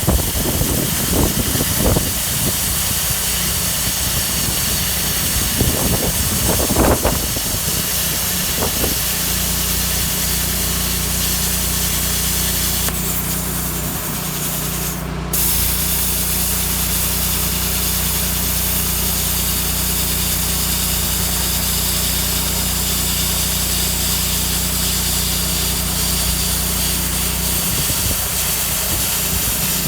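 Plasma cutter cutting metal, its air jet hissing steadily over the steady running of a Miller Trailblazer 325 welder-generator engine, which runs at full throttle while the plasma cutter is on. A few sharp knocks come in the first several seconds, and the hiss stops briefly about fifteen seconds in, then resumes.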